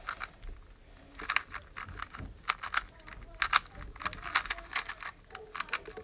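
Dayan Tengen 2x2 speedcube being turned fast during a timed solve: quick runs of light plastic clicks and clacks coming in clusters.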